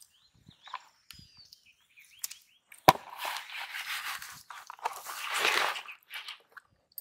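Freshly caught catfish put into a plastic basin: a sharp knock about three seconds in, then about three seconds of wet scraping and slapping as the fish and the hand move in the basin, loudest near the end.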